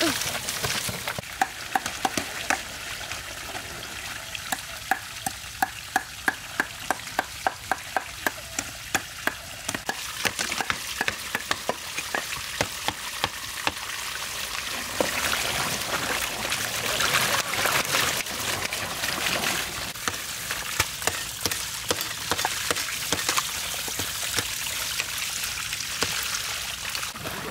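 Kitchen knives scraping slime and skin off large catfish on a split-bamboo slat table. For the first half there are quick, regular scraping strokes, about two to three sharp scrapes a second. After that the scraping turns into a denser, steadier rasp.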